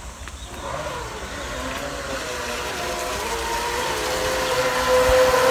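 Remote-control fishing boat's motor whining as the boat speeds back toward the shore, growing steadily louder as it approaches. Its pitch wavers for the first few seconds, then holds steady.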